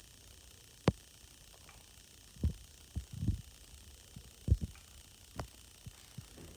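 Irregular handling noises from a hand-cranked circular sock machine as its needles are moved by hand with fingers and a small tool: scattered dull low knocks, with two sharp clicks, one about a second in and one past the middle.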